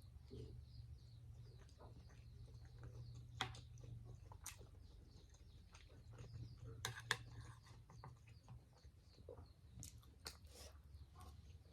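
Quiet close-up eating: soft chewing with scattered small clicks and ticks, a few sharper ones, over a low steady hum.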